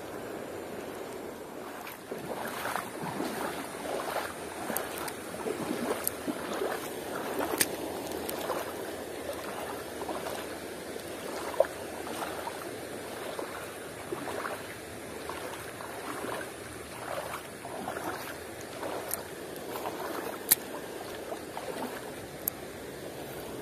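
Shallow river water rushing and rippling over rocks, with a few sharp clicks scattered through it.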